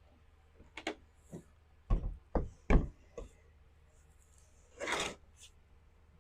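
Several short knocks of hard objects being handled and set down on a work surface, then a brief scrape about five seconds in.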